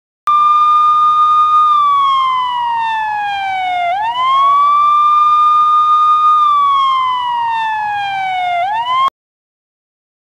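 Police siren wailing: a high tone held, then sliding slowly down and swooping quickly back up, twice over. It starts and cuts off abruptly.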